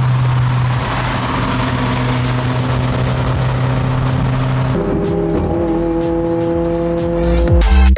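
Electronic music with held synth notes that shift about two-thirds of the way through, a fast ticking beat coming in and a deep bass swell near the end. Underneath, a car rushing past: a 2022+ Subaru WRX with a 2.4-litre turbocharged flat-four and a titanium dual-exit catback exhaust, cruising.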